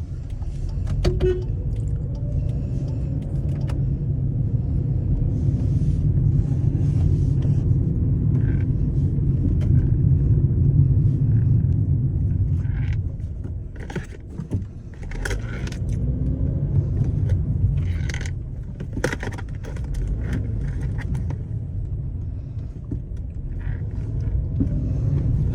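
Cabin noise of a 2012 Hyundai Accent on the move: a steady low rumble with scattered short clunks and rattles. The mechanic takes the knock for a loose, rattling steering rack.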